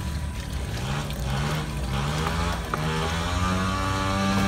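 Small motorboat engine running on the water, its pitch rising and then holding steady in the second half.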